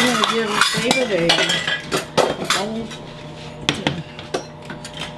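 A spatula scraping and clinking against a skillet as cooked, browned ground sausage is stirred, with a bowl set down on the counter. Irregular clicks and scrapes throughout.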